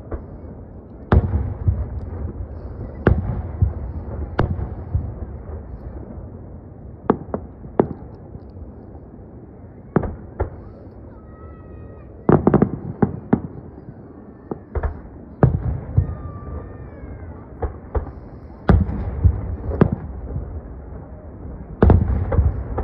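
Aerial fireworks shells bursting one after another, about a dozen sharp booms spread across the stretch, with a quick cluster of several about halfway through. Each boom trails off in a low rumble.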